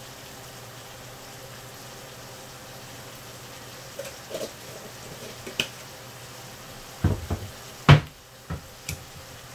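Beef strips frying in a pan, a steady low sizzle over a constant hum. In the second half come a few sharp knocks and clatters, the loudest a thump near eight seconds in.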